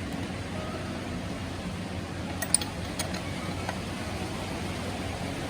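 Steady low background hum, with a couple of sharp metallic clicks a little past halfway as a nut is tightened with a torque wrench, set to 30 foot-pounds.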